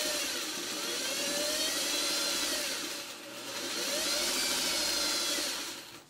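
Electric sewing machine stitching a seam, its motor whine rising and falling in pitch as it speeds up and slows down. It eases off briefly about three seconds in, runs up again, and stops near the end.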